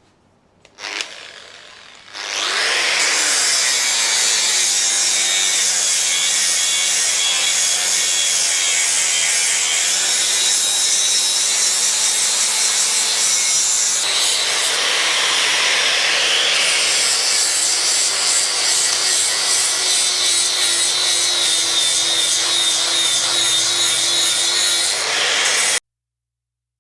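Hand-held abrasive power tool grinding the pitted steel working face of an anvil to dress it flat: a loud, steady harsh rasp with a held whine. The pitch drops as the tool bites in about two seconds in, and the sound cuts off suddenly near the end.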